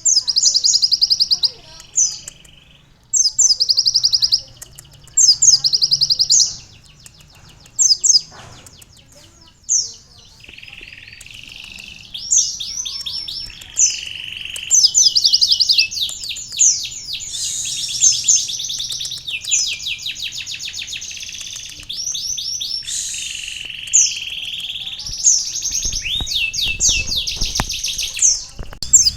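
Kolibri ninja sunbird singing a canary-tutored song: bursts of very rapid, high-pitched trills, short phrases at first and longer, denser runs later, mixed with lower buzzy notes.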